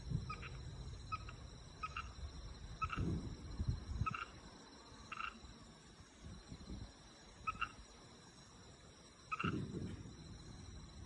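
Frogs calling in short croaks, about eight scattered through the stretch over a faint steady high insect trill. Two low dull rumbles come in, around three seconds in and near the end.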